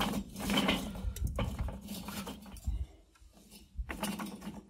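Charcoal briquettes and wood chunks clinking and clattering as they are set into a ring of coal on a kettle grill's charcoal grate, with a quieter pause about three seconds in.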